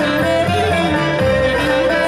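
Live Greek traditional folk dance music: a violin melody over plucked strings and a steady bass beat.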